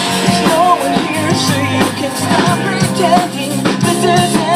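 Pop-rock song with drum kit and bass, with a wavering melodic line sung or played over it.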